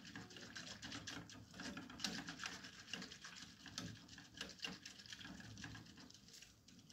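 Wire whisk stirring milk in an aluminium saucepan, the wires ticking and scraping faintly and irregularly against the pan.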